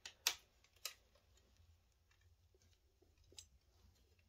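A few faint, sharp plastic clicks and taps from handling a telescope tripod's accessory tray as it is worked onto the leg braces: three in the first second and one more about three and a half seconds in, otherwise near silence.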